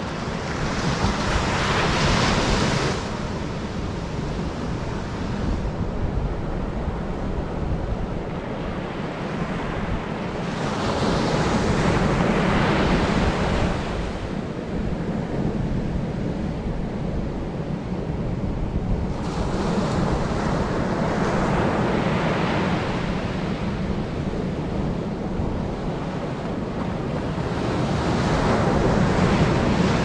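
Ocean surf breaking on a sandy beach, the rushing wash swelling four times as waves break and run up the sand, about every eight to nine seconds. Under it a steady low rumble of strong onshore wind buffets the microphone.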